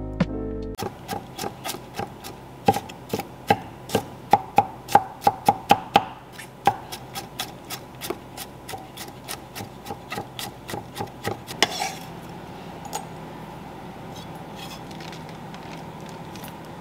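A kitchen knife mincing garlic on a wooden cutting board: quick, irregular knocks of the blade on the wood, about two to three a second. The chopping stops with a short scrape about twelve seconds in, after which only faint light sounds remain.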